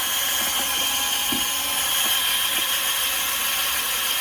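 Durofix 8V cordless screwdriver running steadily at low speed, spinning a sponge pad that buffs restorer compound into a hazy plastic scooter headlight lens, with a constant high motor whine.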